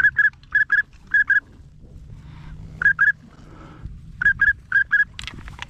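Pintail-style duck whistle calling: six pairs of short, high, clear whistle notes, "pip-pip", loud and close, in two groups of three pairs with a pause between them.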